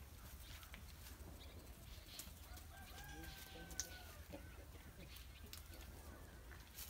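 A chicken calling faintly: one drawn-out, slightly falling call about three seconds in, with a few soft clicks around it.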